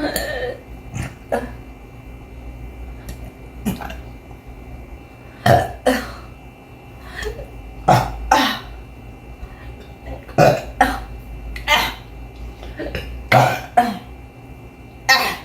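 A person burping over and over, a rapid series of short belches, some louder and deeper than others. The speaker puts the repeated burping down to gas building up after exercise.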